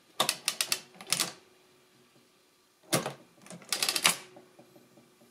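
Brunsviga 90 TA adding machine's toothed-rack mechanism clattering through a subtraction stroke of its hand lever: two bursts of quick metallic clicks, the second about three seconds after the first.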